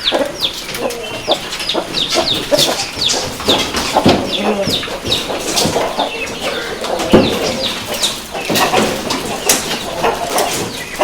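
Chickens clucking and chirping, many short, high, falling calls overlapping one another throughout, with a few sharp taps among them.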